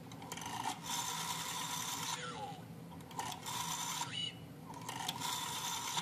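Rotary telephone dial being wound round and let go three times in a row. Each time its spring-driven return whirs and ratchets as it clicks out the dial pulses.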